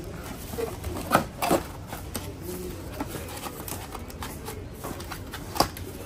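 Vacuum cleaner accessories and packaging handled while being unpacked from the box: a few sharp knocks and clicks of hard parts, the loudest about a second in and another near the end.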